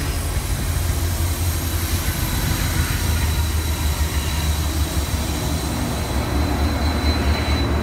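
Railroad locomotives passing under power: a loud, steady low rumble of the engines with rolling noise, and a faint high squeal above it.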